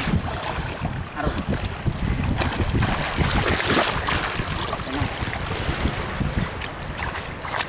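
Wind rumbling on the microphone, over river water lapping and splashing around a person swimming close by.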